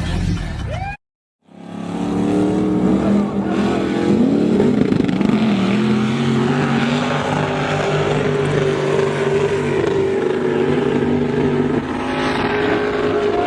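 Off-road vehicle engine running under load, a steady drone that rises and falls in pitch around four to five seconds in. The sound cuts out completely for about half a second near the start.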